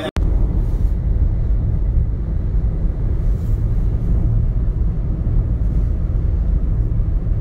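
Steady low rumble of a car in motion, heard from inside the moving taxi: engine and road noise.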